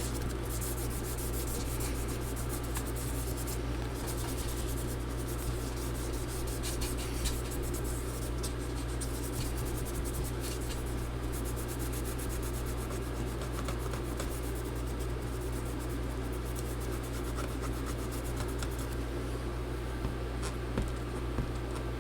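Steady, rapid rubbing strokes on the inside of a MacBook Pro's aluminium case as leftover battery adhesive is scrubbed off with alcohol, over a steady low hum.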